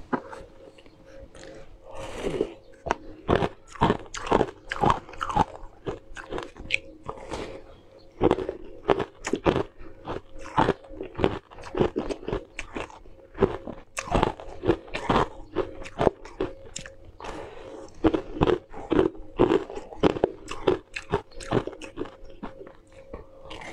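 Close-up crunching and chewing of frosty frozen cubes, bitten and crushed between the teeth in quick runs of sharp crunches with short pauses between bites.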